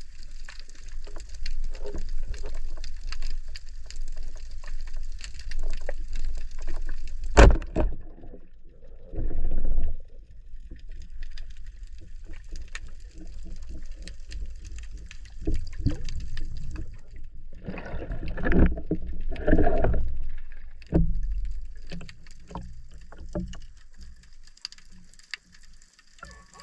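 Muffled water sounds from a spearfishing dive: low rumbling, sloshing and gurgling of water around the camera, with a sharp knock about seven seconds in and louder surges of water later on.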